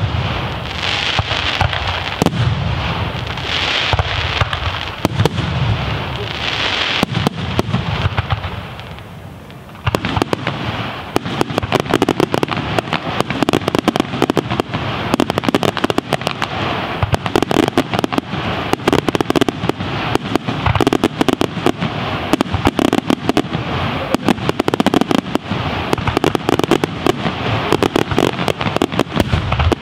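Aerial fireworks shells bursting and crackling. After a short lull about ten seconds in, a dense rapid barrage of bangs and crackles follows.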